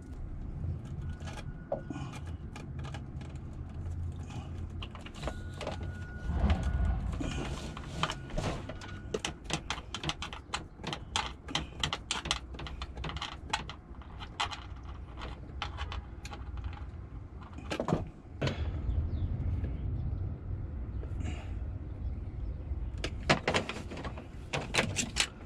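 Small clicks, snips and taps of hand tools and wire being worked, as strands of 10-gauge cable are trimmed and screwed into a solar charge controller's terminals. The clicks come thickest about halfway through and again near the end, over a steady low rumble.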